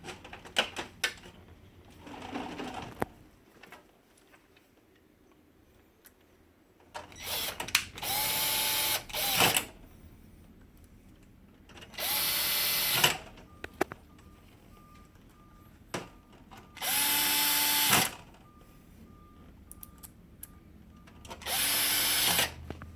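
Cordless electric screwdriver driving screws into a laser printer, its motor whining in four short runs of about a second each, a few seconds apart, with small clicks of handling between.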